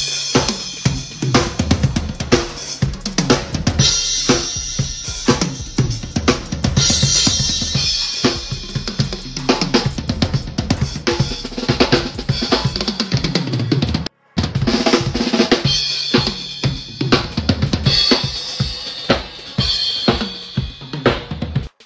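Drum kit played live for a stage sound check: a dense run of kick drum, snare and cymbal hits. The sound breaks off completely for a moment about 14 seconds in.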